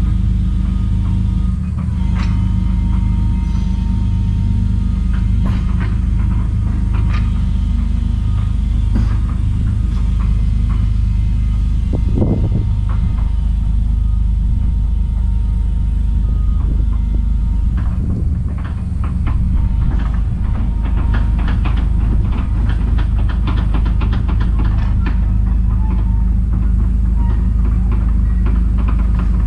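Heavy diesel machine's engine running steadily, with metallic knocks and a long stretch of rapid clanking and rattling from about two-thirds of the way in.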